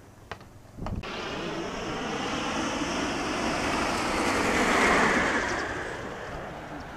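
Propeller aircraft passing overhead: a broad rushing engine sound that comes in about a second in, swells to its loudest about five seconds in, then fades away.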